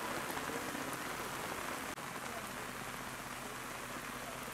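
Steady rain falling on grass and foliage, an even hiss with no single event standing out, briefly dipping about two seconds in.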